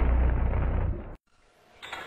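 Electrical short circuit arcing: a loud crackling buzz over a steady low hum, which cuts off about a second in.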